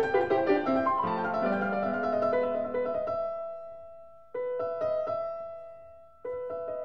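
Piano music: a run of notes that settles into held notes fading away, with fresh chords struck about four seconds in and again near the end.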